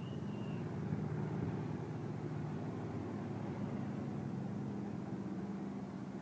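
Engines of several stock cars, chained together in train-race 'trains', running steadily as the cars roll around the oval in formation on a pace lap before the green flag. The result is a continuous blended engine drone with no revving up. A thin high-pitched squeal sounds briefly at the very start.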